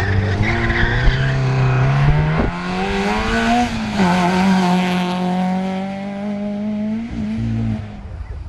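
Rally car engine at full throttle as the car drives up the stage, its pitch rising and jumping at a gear change about two and a half seconds in. The pitch drops as it passes close by about four seconds in, then holds steady before lifting off near the end.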